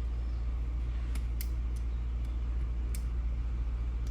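A few short, light clicks and taps of small smartphone parts being handled, over a steady low hum.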